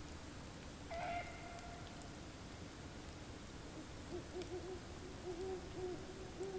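Unidentified animal calling in the woods at night, which the recorder takes for some kind of bird. A low, steady call runs throughout and wavers in pulses in the second half, and a clearer, higher call with overtones starts about a second in and lasts about a second and a half.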